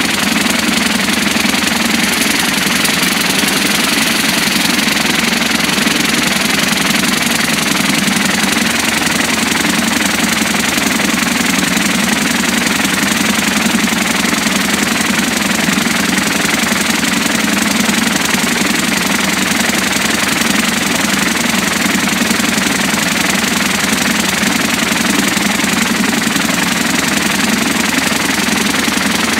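VKT 2200 tub-type vibratory finishing machine running: a dense, steady rattle and hiss of triangular finishing media churning against each other and against aluminium parts, over a steady low hum.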